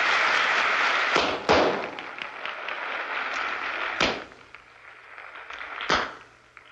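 Revolver shots fired during a fast-draw routine: two quick cracks a little over a second in, then two louder single shots about four and six seconds in. A steady rushing noise underlies the first second or so.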